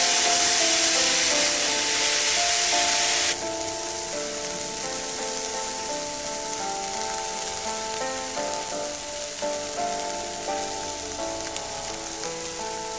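Sprouted green moong beans frying in oil in a pan, sizzling loudly, with the sizzle dropping abruptly a few seconds in and carrying on fainter. Background music with a simple melody plays throughout.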